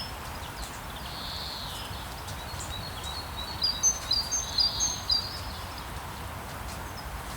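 Steady rain with songbirds singing over it; a short warbled phrase about a second in, then a run of quick, high chirps in the middle.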